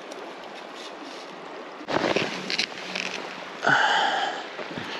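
Steady rush of a river flowing, with rustling and footsteps, a sharp knock about two seconds in, and a short ringing clink a little before the end.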